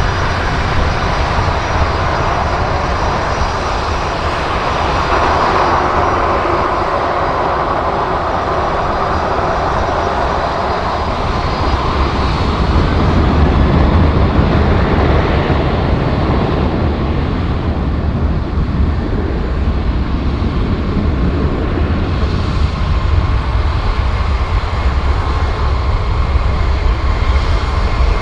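Boeing 737-800's CFM56 jet engines running as the airliner moves on the runway, a steady loud rush. About halfway through, a deeper rumble builds and the sound grows a little louder.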